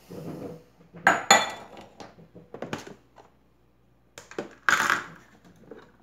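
Mondial blender's plastic jar and lid being handled and lifted off the motor base: a handful of plastic knocks and clatters, the loudest about five seconds in.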